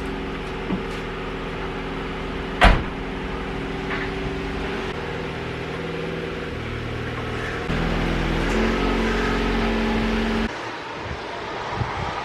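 A car engine running steadily, with one sharp knock a little under three seconds in; its note shifts about eight seconds in and drops away near ten and a half seconds.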